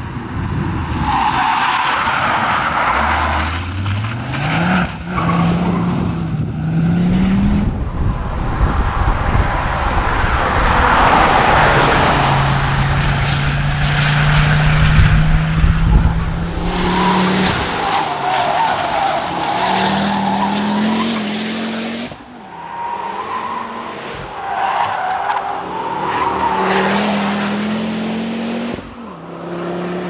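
Ford Focus RS's turbocharged five-cylinder engine accelerating hard past the roadside several times. Its note climbs, drops sharply at each gear change and climbs again.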